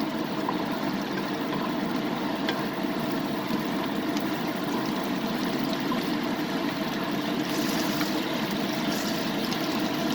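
Hot oil sizzling steadily in a frying pan, with a few faint crackles.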